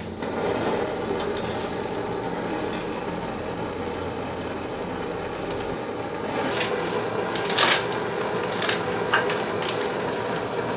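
Backpacking canister gas stove burning under a pot with a steady hiss. From about six and a half seconds in, a few sharp crinkles as a plastic food packet is handled.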